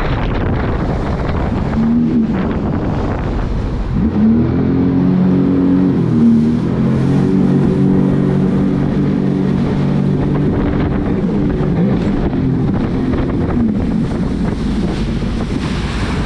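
Sea-Doo jet ski engine running under way over a loud rush of wind on the microphone and water. The engine note rises about four seconds in, holds steady for several seconds, then dips and climbs again near the end.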